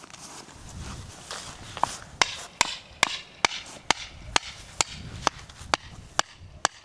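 A mallet driving a tent peg into grassy ground: sharp, even strikes about two a second, starting a couple of seconds in after some rustling handling.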